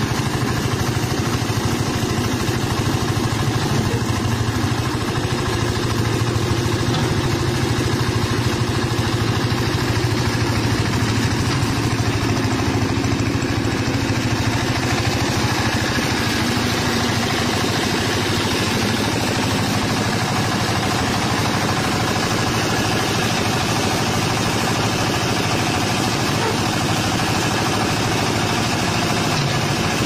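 The 10 HP Kirloskar air-cooled diesel engine of a concrete mixer with a ladder hoist, running steadily.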